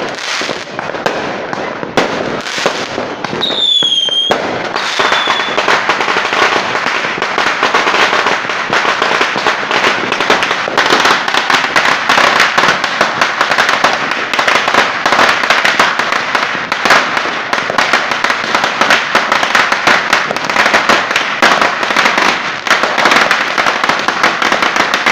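Aerial fireworks crackling: a dense, unbroken run of rapid sharp pops that goes on without pause. A short whistle sounds about three to four seconds in.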